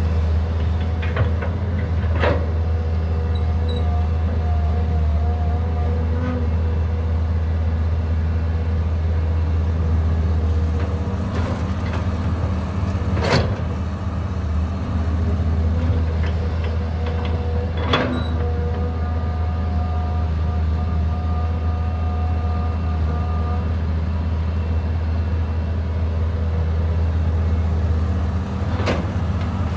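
Cat 320 GC excavator's diesel engine running steadily with a low drone. A few sharp knocks are spaced through it, and a faint whine comes and goes twice.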